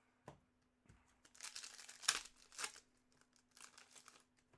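Trading-card pack wrapper crinkling and tearing in a few short bursts, with a sharp snap about two seconds in and softer crinkling near the end.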